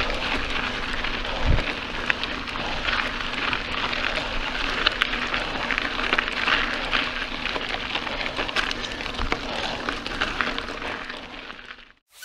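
Mountain bike riding over a dirt trail: a steady crunch of tyres on dirt and gravel with small crackles and knocks, fading out near the end.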